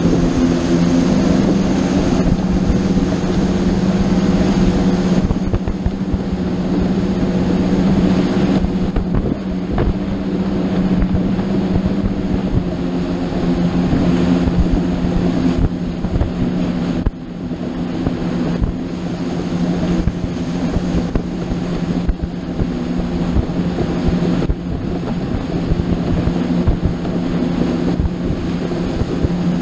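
Motorboat engine running steadily while under way, with wind noise on the microphone.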